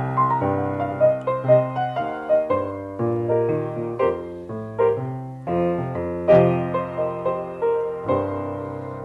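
A 1923 Steinway Model M grand piano being played: a string of notes and chords. A loud chord comes a little past six seconds in, a few softer notes follow, and the sound rings on and fades away near the end.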